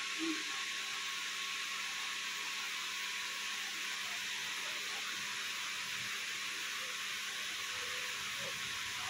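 A steady, even hiss with no change.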